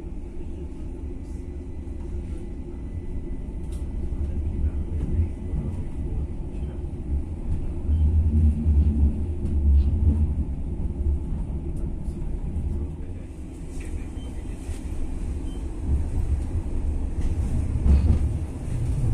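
Running noise inside a Stadler Citylink tram-train in motion: a low rumble from the running gear and motors that swells louder a few times, with a few light knocks.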